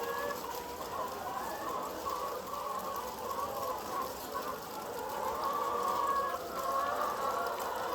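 A flock of many chickens clucking and calling together in a steady, overlapping chatter.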